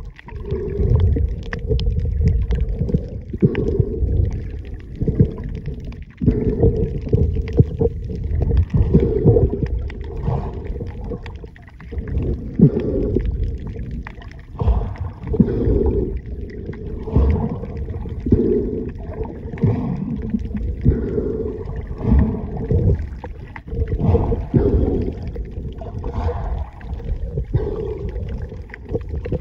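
Muffled, low rumbling and gurgling of water moving around a camera held underwater, swelling and fading unevenly every second or two.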